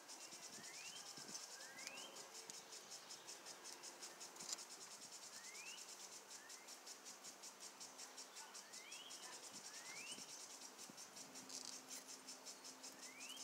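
Faint, steady insect trilling: a fast, even pulsing high-pitched buzz, with short rising chirps scattered through it.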